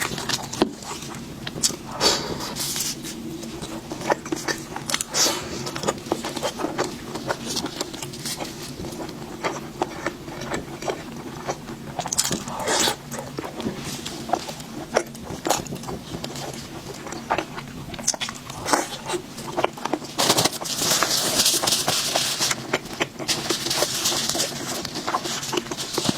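Close-miked eating: bites and crunchy chewing with sharp crackles, growing denser and louder in two stretches near the end.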